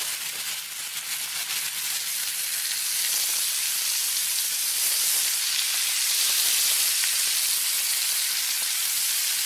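Sausages, green peppers and onions frying in oil in a cast iron skillet: a steady sizzle that builds a little over the first few seconds and then holds.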